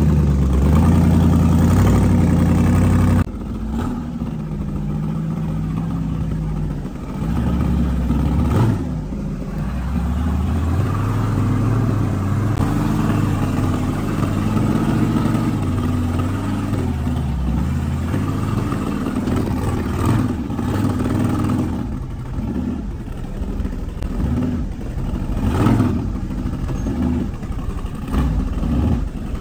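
A rock buggy's engine running and revving up and down as it crawls over rocks, louder for the first three seconds, with a few sharp knocks along the way.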